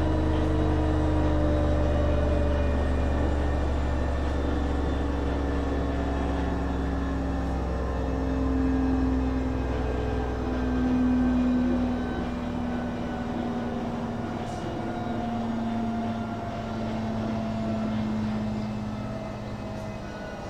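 Schulthess washing machine spinning its drum: a steady motor whine with several tones slowly falling in pitch over a low hum that fades away about halfway through.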